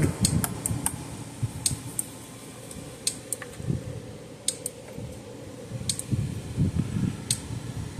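Gallagher M150 electric fence energizer ticking with each output pulse, a sharp click about every second and a half, while it runs under a 500 ohm test load. There is low rustling from handling the test leads.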